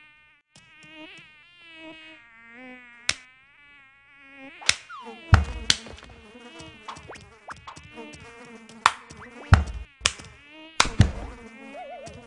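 Cartoon sound effect of a fly buzzing, its pitch wavering. From about five seconds in, sharp clicks and several loud, deep thumps break in while the buzzing goes on.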